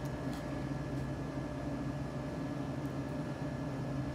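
A steady background hum with a few constant tones, and a faint click soon after the start.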